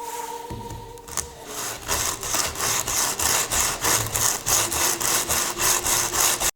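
Japanese handsaw sawing through a wooden board in quick, even strokes, about three a second. The strokes start about a second and a half in and stop abruptly at the end.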